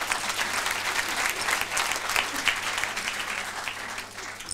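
Audience applauding: many hands clapping densely, dropping away sharply near the end.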